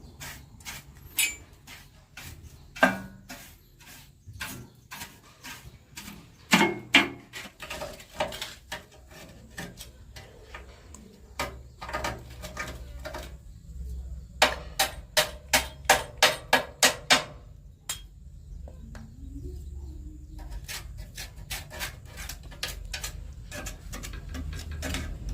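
Hand tools knocking and clinking on the metal parts of an old rice milling machine. About halfway through comes a quick run of around a dozen light knocks, three or four a second.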